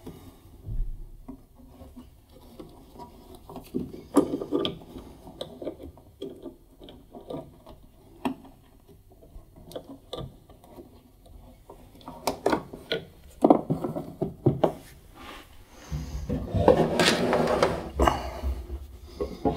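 Handling noise inside an opened tumble dryer: plastic wiring connectors and cable clips clicking and knocking as the heater wiring is unplugged and worked free. Near the end a louder, longer rubbing scrape of about three seconds.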